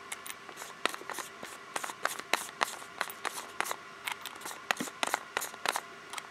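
Irregular small clicks and ticks of a screw extractor bit being handled and reseated in a cordless drill's keyless chuck, as the bit is switched to its removal end.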